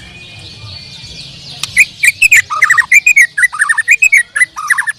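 White-rumped shama (murai batu) singing. After a quieter start with a faint low hum, a fast, loud run of short chirping and whistled notes begins a little under two seconds in.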